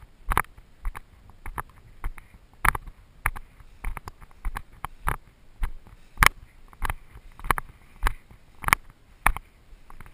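Footsteps through long grass at a steady walking pace, about one and a half steps a second, each step a soft thud with a brush of grass stems.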